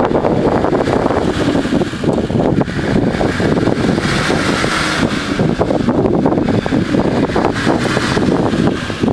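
Nissan Patrol 4WD engine running hard under load as it tries to pull itself and a camper trailer out of deep mud, with heavy wind buffeting on the microphone.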